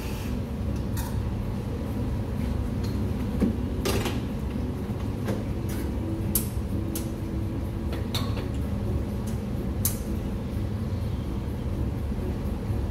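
Sharp metal and ceramic clinks and knocks as an espresso machine's portafilter and cups are handled, about half a dozen spaced-out clicks over a steady low rumble.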